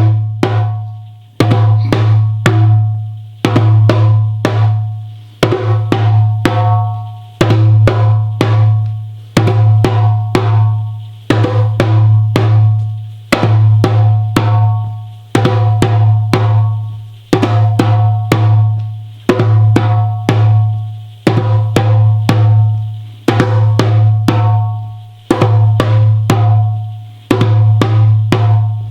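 A drum played in a steady repeating rhythm: a group of quick strikes about every two seconds, each with a deep booming tone that rings and dies away before the next group.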